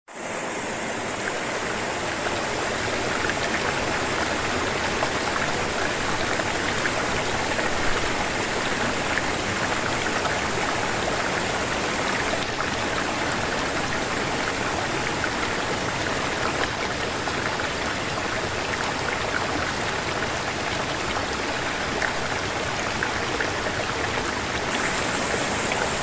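Gorge stream tumbling over rocks and small cascades and waterfalls: a steady rush of water.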